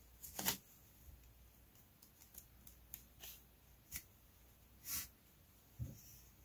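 Faint clicks and rustles of a pack of tablet-weaving cards being turned and handled, with a pencil slid through the pack; a sharper click about five seconds in and a soft knock shortly after.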